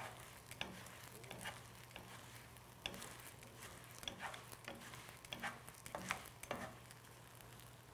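Wooden chopsticks and a wooden spatula tapping and scraping a thin pancake around a nonstick frying pan, a few faint scattered clicks over a light hiss. The pancake is being rubbed and turned so that its layers separate.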